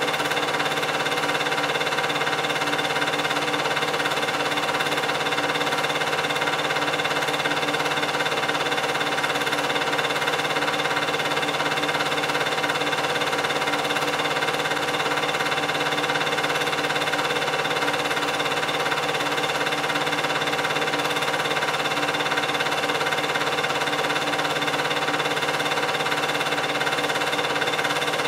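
8mm film projector running: the steady whir of its motor and film transport, with a constant hum of several fixed tones that never changes.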